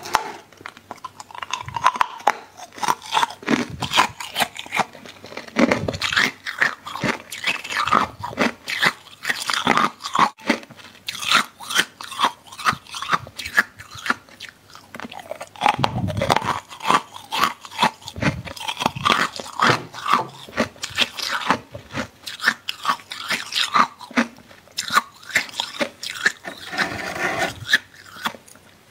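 Close-miked crunching and chewing of freezer frost: a dense run of crackly crunches, with a few heavier bites spread through.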